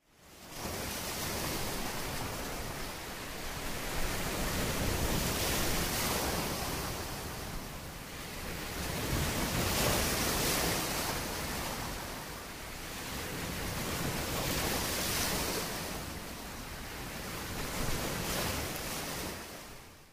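Gentle surf: shallow water washing over sand, swelling and ebbing about every four to five seconds.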